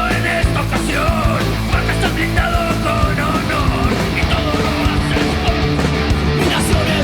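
Oi! punk rock song playing at full volume: distorted electric guitars over a driving drum beat.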